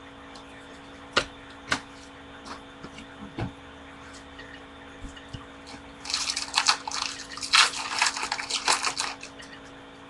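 A few sharp clicks, then about three seconds of dense crinkling as the wrapper of a baseball card pack is torn open and pulled back.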